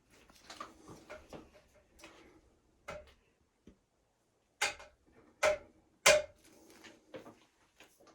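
Hoses being fitted onto a drill-powered transfer pump's inlet and outlet: a scatter of light clicks and knocks from handling the pump body and hose ends, with three sharper knocks a little under a second apart midway.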